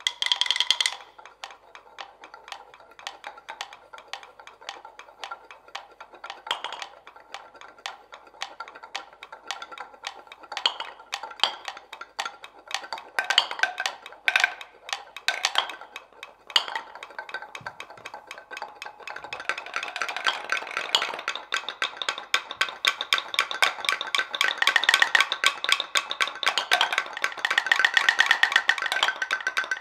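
Seven wooden mortars played as percussion instruments, making quick, clattering wooden clicks and knocks. The clicking is sparse at first, then grows denser and louder about two-thirds of the way through.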